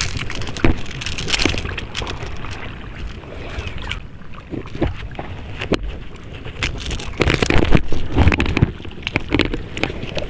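Wind rumbling on the microphone over water lapping in the shallows, with scattered clicks and knocks from handling the fishing gear, busiest near the end.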